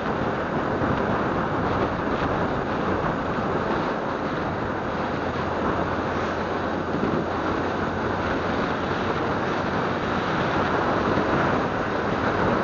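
Steady wind rush over the microphone of a camera riding on a moving motorcycle, mixed with the bike's engine and road noise.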